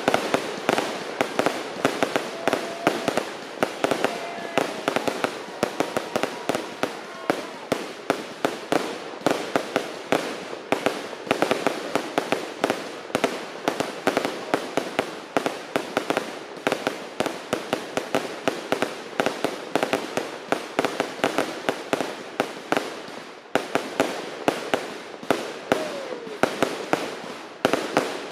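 Fireworks display: a rapid, unbroken string of bangs and crackles from shells bursting overhead, easing briefly about four-fifths of the way through before picking up again.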